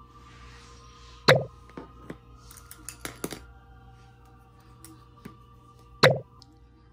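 Small plastic jelly-gouache paint cups handled and knocked down on a cutting mat: two sharp knocks, about a second in and near the end, with lighter clicks between them. Faint music plays underneath.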